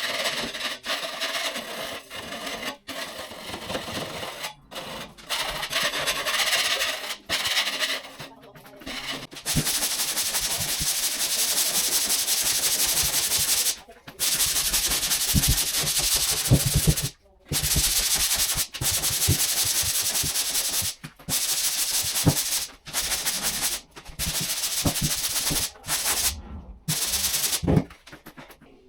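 Sanding dried plaster compound on a plasterboard wall: abrasive scraping in runs of a few seconds, broken by short pauses.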